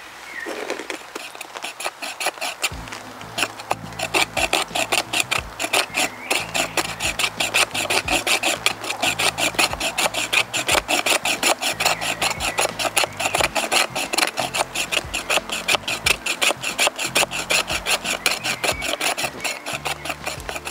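Knife blade scraping dry inner wood into fine tinder shavings, in quick, even strokes about three a second.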